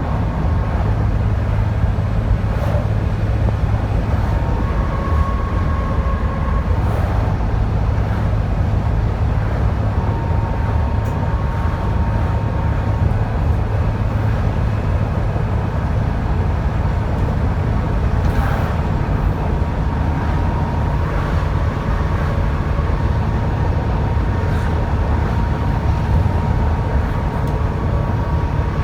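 Dennis Trident 2 double-decker bus running under way: a steady low engine drone with a thin turbocharger whistle that comes and goes.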